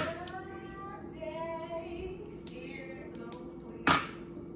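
Faint background music with a singing voice, broken by two sharp snaps, one right at the start and another about four seconds in, of a hardened slab of Christmas crack (toffee over crackers) being broken into pieces.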